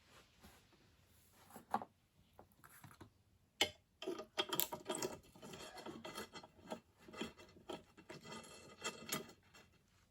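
Hand work on a mechanical railroad crossing bell: a few sharp clicks, then about five seconds of rapid scraping and rubbing that stops shortly before the end.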